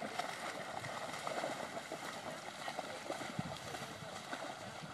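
Several dogs wading and swimming through shallow river water, with continuous irregular splashing.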